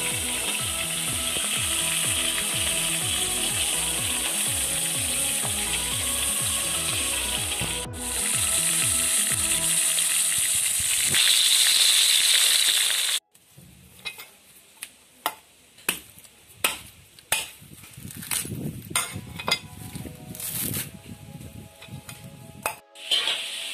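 Tiger prawns frying in oil in a kadai: a steady sizzle. About thirteen seconds in it gives way to a string of sharp chopping strikes, about one a second, as a machete hacks the husk off a coconut.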